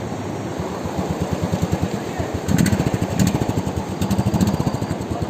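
Royal Enfield motorcycle engine running with a fast, even pulse that starts about half a second in, revved up twice, over the steady rush of river water.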